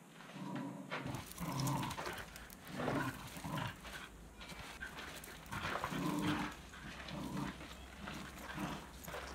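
Small terrier making a string of short vocal sounds, about one a second, over a low steady hum that starts about a second in.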